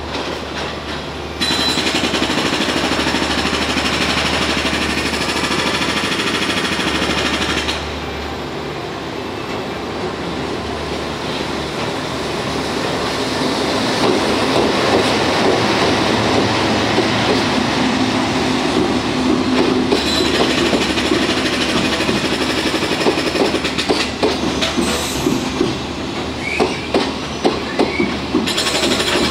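A freight train of flatcars loaded with long welded rails, hauled by an EF65 electric locomotive, rolls past with a continuous rumble. There is an abrupt louder stretch of a few seconds after the start. Toward the end the wheels clack over the rail joints in quick, sharp beats.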